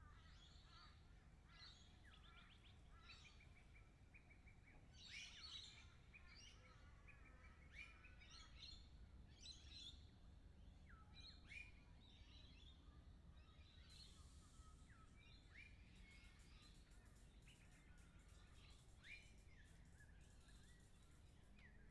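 Faint lorikeets calling in a scatter of short, high chirps and screeches, over a low steady rumble.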